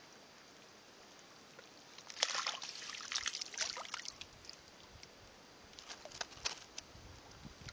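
Landing net swept through shallow pond water, splashing and sloshing. The splashing starts about two seconds in and lasts a couple of seconds, and a shorter run of splashes comes later.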